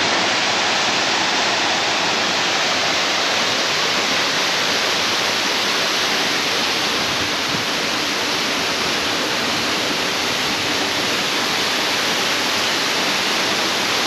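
Waterfall pouring, a steady rush of falling water at close range.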